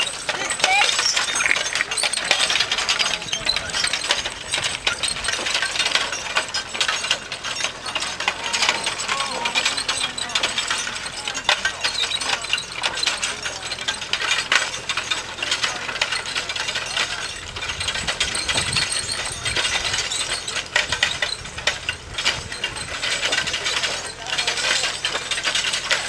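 Continuous dense clinking and rattling of metal from horse-drawn farm equipment at work, a fast clatter of many small knocks.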